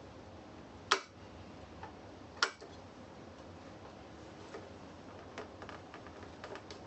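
Two sharp clicks about a second and a half apart, then a few faint ticks: small hard parts and tools being handled while an electric unicycle is taken apart.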